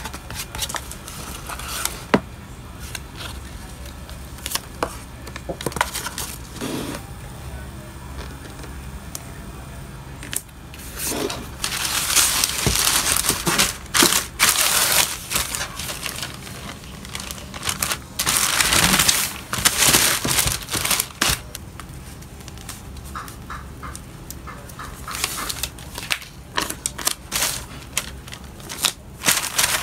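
Hands packing a parcel: light taps and clicks on a cardboard mailer box, then loud crinkling and rustling of a plastic poly mailer bag in several long stretches in the middle, with softer rustles and taps near the end.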